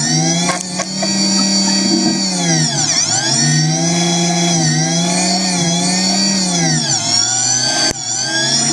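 A machine tool's electric motor whining, its pitch rising and falling in smooth sweeps several times as the speed changes. It breaks off abruptly about half a second in and again near the end.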